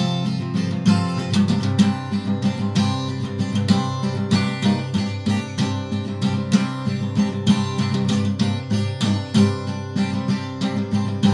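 Steel-string acoustic guitar strummed in a steady rhythm, chords ringing with no voice over them.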